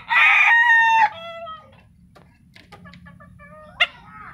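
Ayam Arab rooster (a Silver Braekel type) crowing: a loud crow whose last note drops lower and trails off about a second and a half in. A brief sharp call comes near the end.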